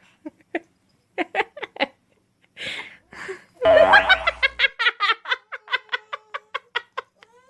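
A young child giggling: scattered short laughs, then a long run of quick, high-pitched giggles from about halfway through.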